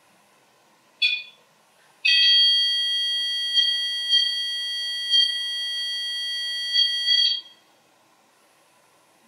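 Electronic alarm from a battery-powered ghost-hunting trigger device with an antenna: a short beep about a second in, then a steady high-pitched tone held for about five seconds with a few brief flutters, cutting off suddenly. This is the alert the device gives when it is set off.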